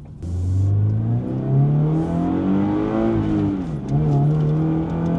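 2025 Toyota GR86's flat-four engine running through an HKS Hi-Power single-exit exhaust under way, heard from inside the cabin. The engine note climbs as it pulls, dips briefly about four seconds in, then holds steady.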